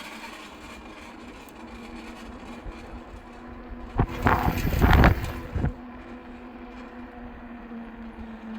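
Engwe Engine Pro e-bike's rear hub motor running at about 20 km/h with a steady hum, the strange motor sound the owner takes for a fault. About four seconds in, a sharp knock and a louder burst of noise last for a second or two.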